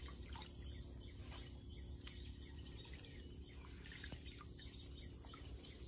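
Faint rustling of wet grass and small splashes as hands pull and spread grass in shallow water, with irregular soft crackles, over a steady high insect trill.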